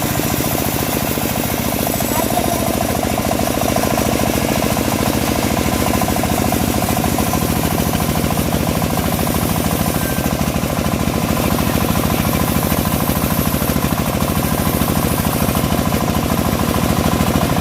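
Engine of a homemade bandsaw mill running steadily with a rapid, even firing beat, the saw working through a teak log.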